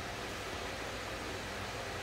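Steady background hiss with no distinct sounds in it.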